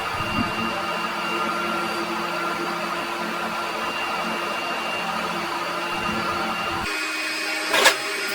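Workshop machine running with a steady hum. Its low part drops away about seven seconds in, and a single sharp metallic knock follows shortly after.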